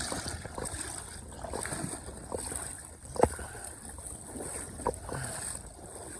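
Steady rush of river water with wind on the microphone, broken by a few short knocks, the loudest about three seconds in.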